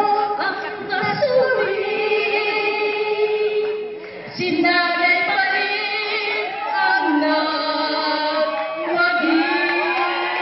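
A woman singing into a microphone, amplified, holding long notes with a brief break about four seconds in.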